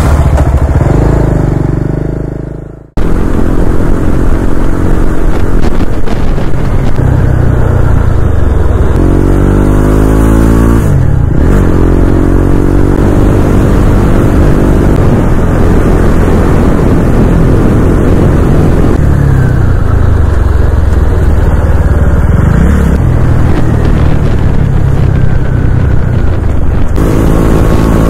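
A road vehicle's engine running, heard from on board under a loud, steady rumble of road noise. Its pitch rises and falls with revving around ten seconds in. The sound fades and cuts out for a moment about three seconds in, then carries on.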